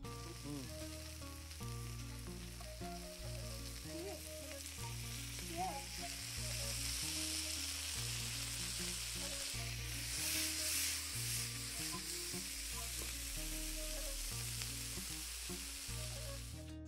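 Nsenene (bush crickets) sizzling steadily as they fry in a metal pot. The sizzle swells about ten seconds in. Quiet background music plays underneath.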